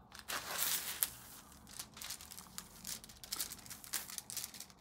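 Clear plastic protective film crinkling and crackling as it is peeled back off the sticky glue of a diamond painting canvas, the film catching where it is stuck to the glue. A louder stretch of crinkling comes about half a second in, then scattered crackles.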